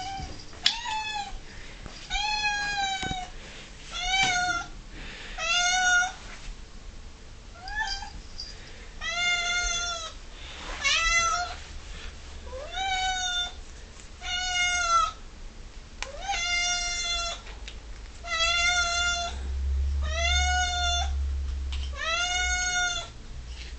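Domestic cat meowing over and over, about a dozen insistent calls, one every one and a half to two seconds, each rising then falling in pitch: demanding whingeing for food at feeding time.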